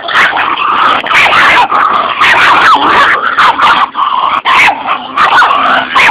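Two miniature pinschers fighting over a bone: a loud, continuous high-pitched dog scuffle full of quick rising and falling cries and frequent sharp clicks, which cuts off abruptly at the end.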